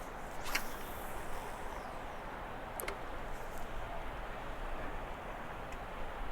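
River water flowing, a steady even rushing, with a couple of faint clicks about half a second and three seconds in.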